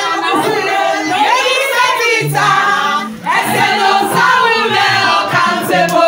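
A group of voices singing together, with low bass notes of accompanying music coming in about two seconds in.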